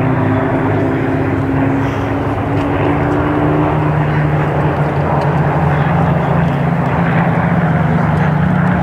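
A formation of Supermarine Spitfires flying over, the V12 piston engines of many aircraft blending into one loud, steady drone, with one engine tone rising slowly in pitch.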